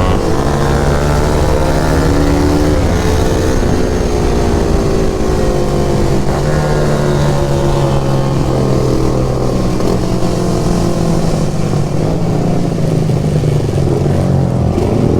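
KTM RC 390's single-cylinder engine running while the bike is ridden, its pitch falling and rising several times as the throttle is opened and closed.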